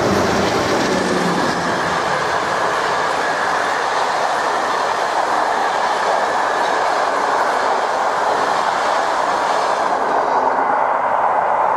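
PESA Gama SU160 diesel locomotive passing close with a passenger train: its engine is heard for the first second or two, then the coaches' wheels roll past on the rails in a steady, loud rush. The sound thins near the end as the last coach goes by.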